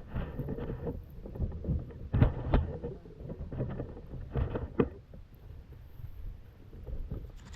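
Wind buffeting the microphone and rustling handling noise, broken by a few sharp clicks, two close together about two seconds in and two more a little after four seconds.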